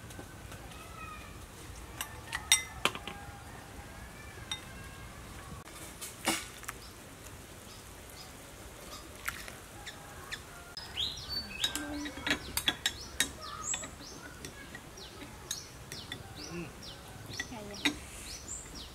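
Metal spoons clinking against a cooking pot and small bowls in a scattering of sharp clicks, with birds chirping in the background.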